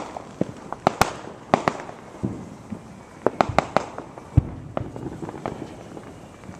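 Consumer fireworks going off across the neighbourhood: an irregular string of sharp bangs and pops, many overlapping, with a deeper, heavier boom about four and a half seconds in.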